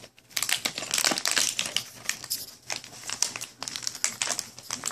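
A dachshund chewing and tearing at a treat-filled plastic snack bottle packed in a cardboard box. The packaging crinkles and crackles in quick, irregular bursts, starting about half a second in.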